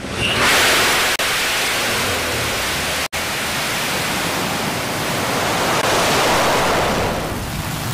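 New Shepard rocket's single BE-3 engine firing at liftoff: a loud, even rushing noise that swells in the first half-second, with a split-second dropout about three seconds in.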